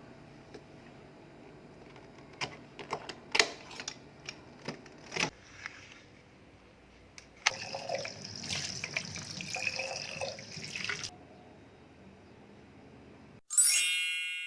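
A few light clicks and knocks, then water running for about three and a half seconds before stopping, then a bright ding that rings out and fades near the end.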